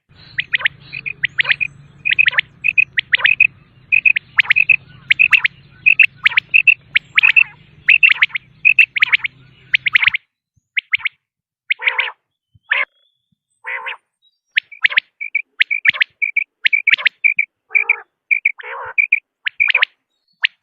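Common quail calling in a rapid series of short, high chirping notes, with some lower, rougher notes mixed in during the second half. A low hum sits under the calls for the first half and stops about halfway.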